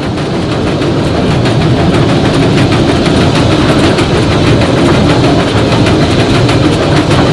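Northern Central Railway No. 17 'York', a 4-4-0 steam locomotive, working hard: a loud, steady run of rapid exhaust beats and running-gear rumble that builds over the first second, then holds.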